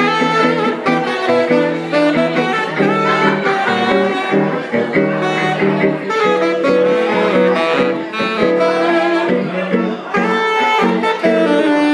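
Live jazz played by a saxophone and guitar duo, the saxophone carrying a busy melodic line of quickly changing notes.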